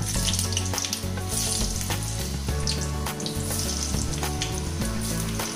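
Large potato chunks deep-frying in hot oil: a steady sizzle with scattered crackles and pops.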